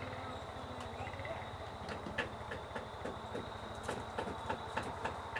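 Hand screwdriver working a Phillips screw into a metal wall-pack light housing: a string of sharp, irregular clicks, about three a second, starting about two seconds in. The screws' Phillips heads are stripping. A steady low hum runs underneath.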